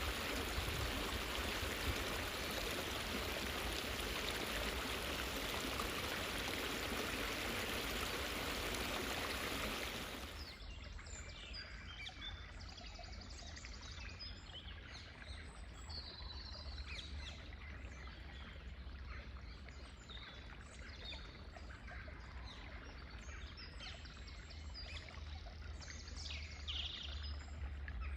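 Running water of a stream or small cascade, a steady rush, which cuts off about ten seconds in. Then many small birds chirping and singing in woodland over a low background rumble.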